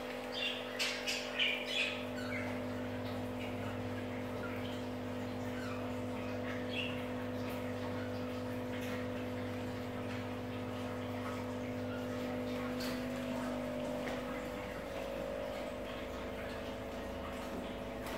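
Budgerigars chirping: a quick run of chirps in the first two seconds, then scattered single chirps, over a steady low hum.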